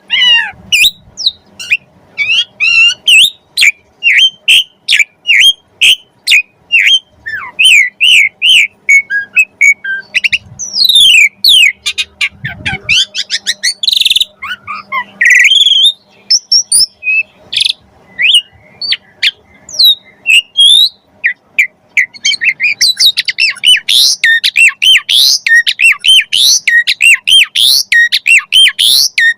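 Pied starling (jalak suren) singing a long, varied song of quick chirps, whistles and sweeping notes, full of mimicked phrases of other birds; the notes come faster and closer together toward the end.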